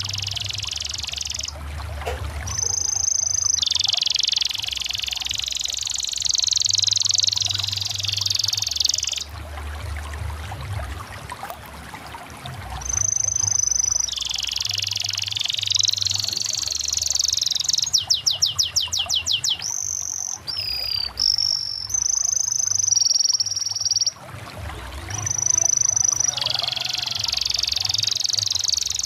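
Domestic canary singing: long rolling trills broken by clear high whistled notes, with a fast run of rapidly repeated notes about two-thirds of the way in. A low steady hum sits underneath.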